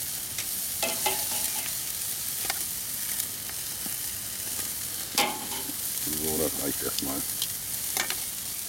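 Marinated turkey pieces sizzling on the grate of a gas kettle grill at full heat: a steady hiss, with metal tongs clicking against the grate several times as the pieces are turned, the loudest click about five seconds in.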